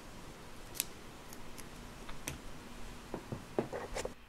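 Scattered light clicks and taps of plastic toy parts and a Play-Doh tub being handled, sparse at first and coming closer together near the end.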